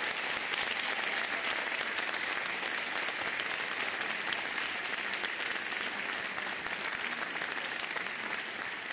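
Audience applauding, a dense, steady clapping that eases slightly near the end.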